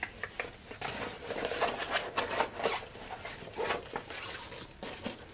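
Irregular rustling and crinkling as a pink Longchamp bag and the paper stuffing inside it are handled and turned over.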